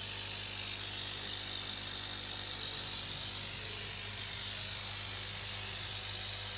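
Steady hiss of air bubbling through the water of a biofloc fish tank's aeration, with a constant low electrical hum from the air pump underneath.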